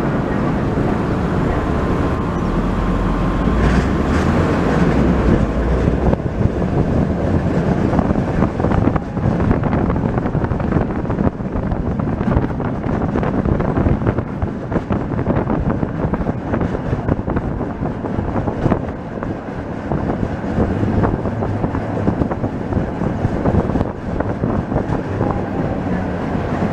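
A tram running along its rails, heard from on board: a steady rumble of wheels and running gear with many short clicks and knocks from the track.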